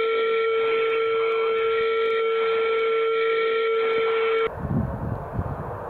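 Steady, unbroken electronic tone in a fighter's cockpit audio, heard over a narrow, radio-like recording. It cuts off suddenly about four and a half seconds in and is replaced by the rumble of jet engines.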